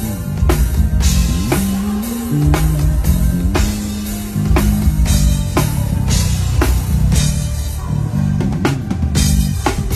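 A drum kit played with a band track: kick drum, sharp snare hits and cymbal washes over a stepping bass line.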